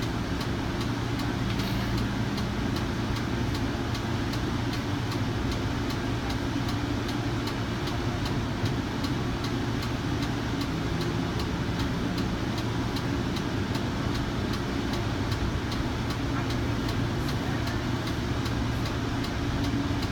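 Cabin sound of a Kinki Sharyo light rail vehicle pulling away from a station and running on open track: a steady rumble of motors and wheels on rail, with a regular light ticking about three times a second.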